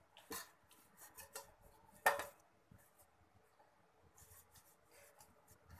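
Faint scraping and rubbing of oil being brushed around the inside of an aluminium cake tin as it is turned in the hands, with small clicks and one sharper knock of the metal tin about two seconds in.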